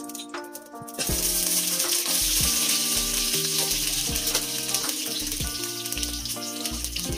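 Onion chunks and red pepper dropped into hot oil in a pot, sizzling suddenly from about a second in and then frying steadily, over faint background music.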